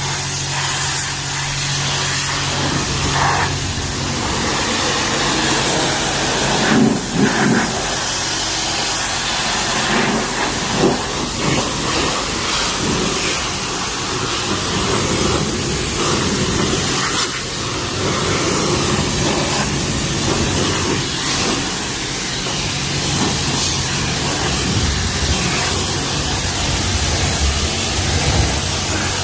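Car-wash pressure wand spraying a high-pressure jet of water onto an engine bay: a continuous hiss of spray that swells and shifts a little every few seconds, with a low steady hum underneath.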